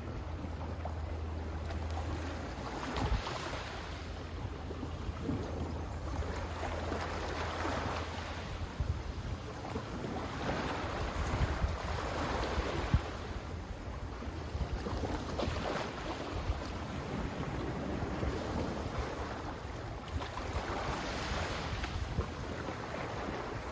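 Sea waves washing in, each swell of surf rising and falling every few seconds, over a low wind rumble on the microphone.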